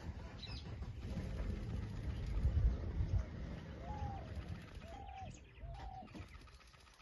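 A dove cooing three short notes from about four seconds in, with faint high bird chirps near the end. Under it runs a low rumble, loudest about two to three seconds in.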